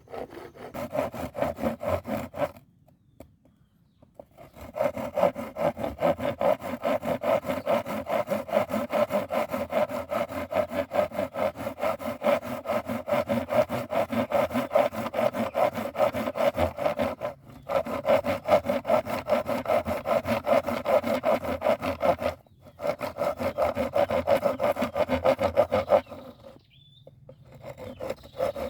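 Hand saw cutting through wood in rapid back-and-forth strokes. It stops for about two seconds near the start, breaks briefly twice, and pauses again near the end.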